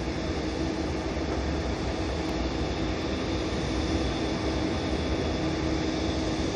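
Airbus A320-232's IAE V2500 engines running, heard inside the cabin as a steady drone with a steady mid-pitched hum and a faint high whine, growing slightly louder.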